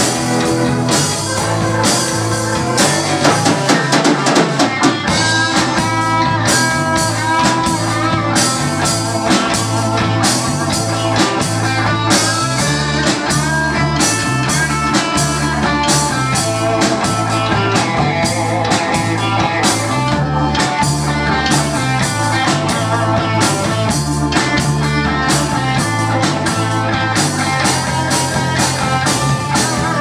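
Live band playing an instrumental break with no singing: drum kit keeping a steady beat under bass guitar, electric guitar and a Hammond SK1 keyboard.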